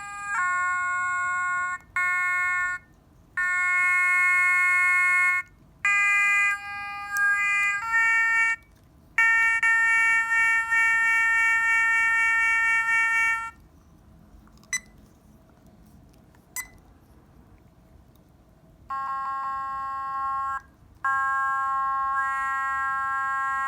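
Mini Otamatone playing its built-in demo song through its small speaker: an electronic tone holding notes that step up and down in pitch. The tune stops about halfway through for about five seconds, with a couple of clicks, then starts again.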